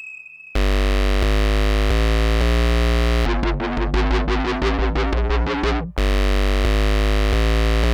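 Electronic drum and bass music with a heavy, distorted synth bass that comes in about half a second in. Through the middle runs a busier stretch of rapid synth notes, and then the sustained bass part returns.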